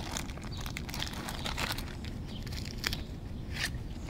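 Plastic bag crinkling and rustling in hands rummaging through a backpack, with irregular small clicks.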